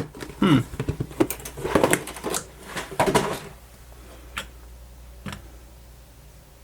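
Hands rummaging through a box of small parts, a quick run of clicks and rustles for about three seconds, then two lone clicks.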